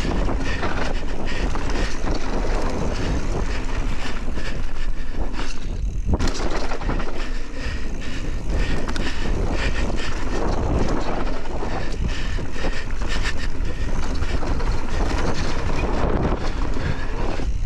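Mountain bike riding fast down a dirt singletrack: wind rushing over the microphone, tyres rolling on packed dirt and the bike rattling over bumps, with a brief lull about six seconds in.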